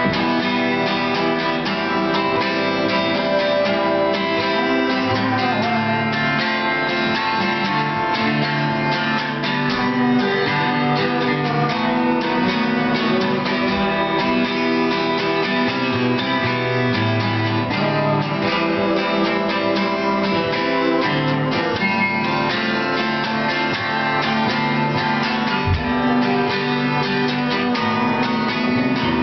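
Acoustic guitars playing an instrumental passage, with strummed chords, without vocals.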